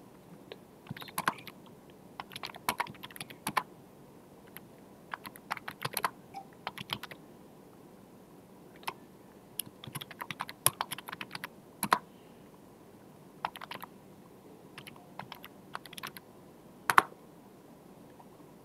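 Computer keyboard keys being typed in short irregular bursts of clicks, with one louder single keystroke near the end.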